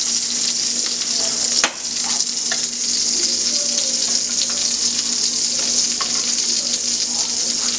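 Bison meatballs sizzling in hot oil in a cast-iron skillet, a steady frying hiss, with one sharp click about one and a half seconds in.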